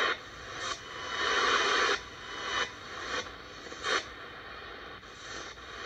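ATS-25 DSP shortwave receiver's speaker being tuned step by step in AM through the 25 m band: static and hiss that change abruptly about every half second as the frequency steps from channel to channel.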